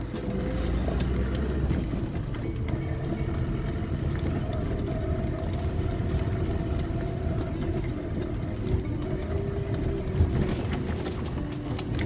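Car driving slowly along a snow-covered dirt track: a steady engine hum over a low road rumble.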